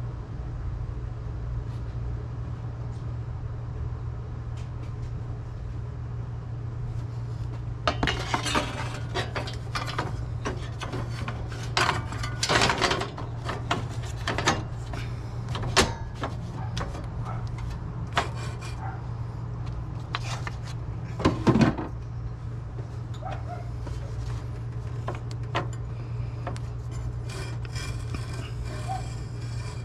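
Metal hand tools and parts clinking and clanking in irregular bursts during reassembly work on a car, over a steady low hum.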